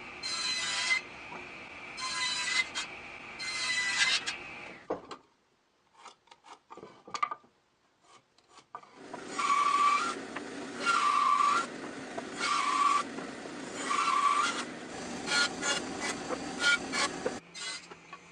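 Wood being cut with a hand saw in repeated strokes, about one a second, with a ringing note on each stroke. The strokes stop for a few seconds midway, with only a few small knocks, then start again.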